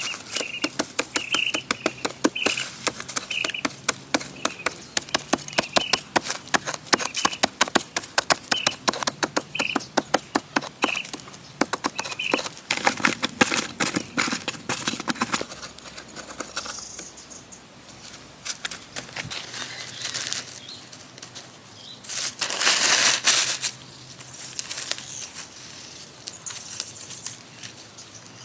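A fast run of sharp knocks or taps, several a second, through the first half, while a small bird gives short chirps over and over. Later come scattered quieter sounds and one brief rustling burst.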